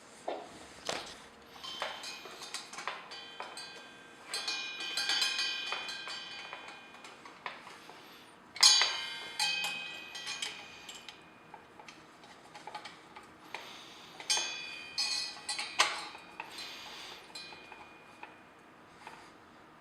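Irregular clicks and light clatter of small plastic and metal exhaust-fan parts being handled, some knocks ringing briefly, the loudest about eight and a half seconds in and again around fifteen seconds.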